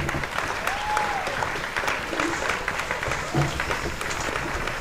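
Steady clapping, like audience applause.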